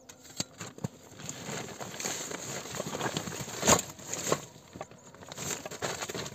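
Rustling and crinkling of a backpack being handled against the tent floor, with scattered small clicks and one sharp knock a little over halfway through.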